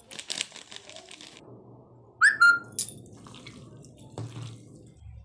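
Hands mixing raw mutton pieces with spices in a steel bowl, with a short loud whistle about two seconds in that rises and is then held briefly, plus a few clicks.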